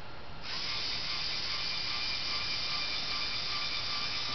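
LEGO Mindstorms NXT servo motors driving the robot arm: a steady whir and gear whine with a few held high tones, starting about half a second in.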